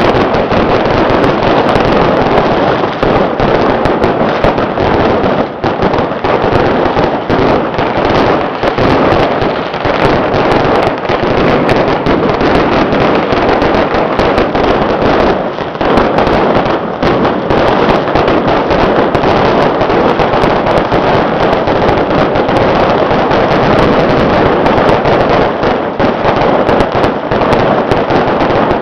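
Massed strings of firecrackers going off in a dense, continuous, loud crackle of rapid bangs, without a break.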